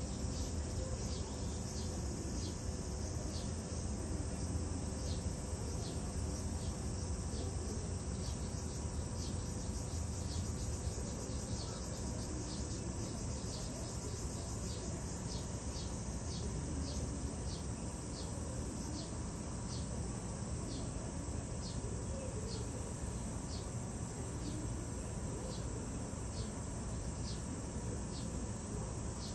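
Insects calling steadily in the background, a short high chirp repeating about once or twice a second, over a low steady hum.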